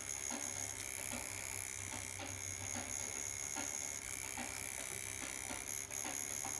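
Electric tattoo machine running steadily while its needle lines a tattoo into the skin of an arm, with faint ticks throughout.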